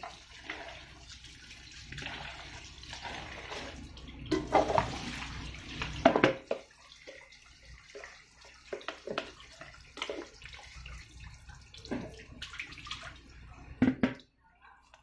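Water from a tap splashing into a plastic basin as hands wash sliced chayote, louder in bursts; after about six seconds the water stops, leaving scattered short knocks and clinks of an aluminium pot being handled.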